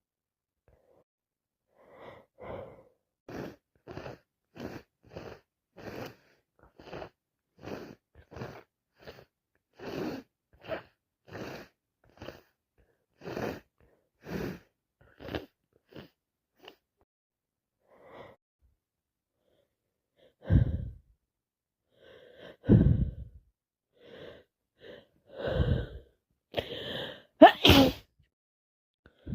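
A person sneezing: a long run of short, evenly spaced breathy sounds, about two a second, then about four much louder sneezes in the second half, the loudest near the end.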